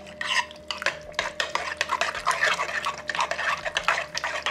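Metal spoon stirring a thick, wet fruit mixture in a glass bowl, scraping and clinking against the bowl in quick repeated strokes, about three or four a second.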